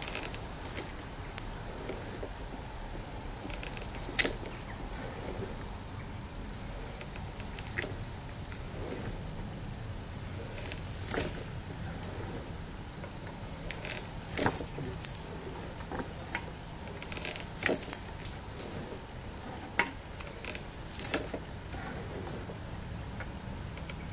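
Large welded steel beam-pump sculpture being rocked by hand: its pivot gives high metal-on-metal squeaks, with clinks and knocks from the moving parts, in irregular bursts every few seconds.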